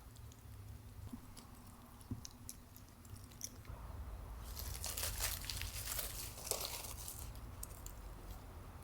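Crinkling, crunching handling sounds: a few scattered small clicks, then a denser run of crinkling for a couple of seconds from about halfway through.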